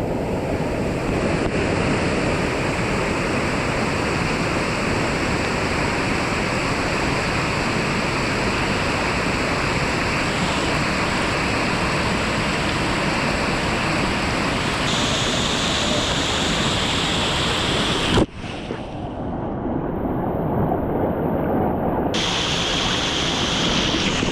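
Waterfall running, a steady loud rush of falling water. About three-quarters of the way through it breaks off for an instant and comes back duller for a few seconds before the full rush returns.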